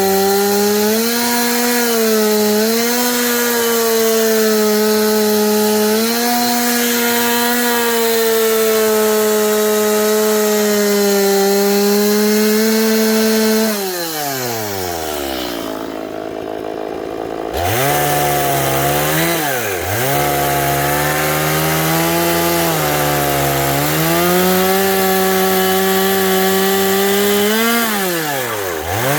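Chainsaw running at high revs under load, cutting cedar, its pitch steady with slight wavers. About fourteen seconds in it drops to idle for a few seconds, then revs back up and cuts again, dipping in pitch a couple of times.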